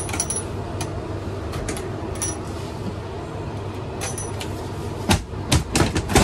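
Side middle berth of a railway sleeper coach being unfolded and lowered: its metal hooks and chains click and clink, then several louder knocks near the end as the berth comes down and settles on its chains, over a steady background hum.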